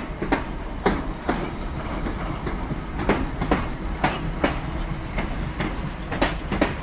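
Class 455/8 electric multiple unit moving off, its wheels clicking over rail joints in pairs (clickety-clack) over a steady low rumble.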